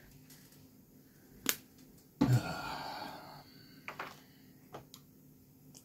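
Airbrush spraying a primer coat: a sharp click about a second and a half in, then a hiss of spray lasting just over a second. A few light clicks follow.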